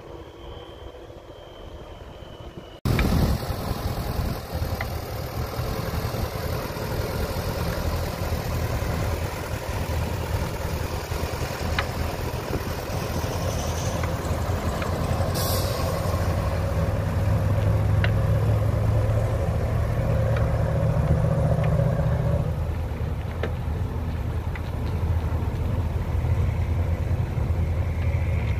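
Belarus MTZ tractor's diesel engine running steadily as it pulls a tall cassava trailer past and away; the engine sound starts abruptly about three seconds in after a quieter stretch.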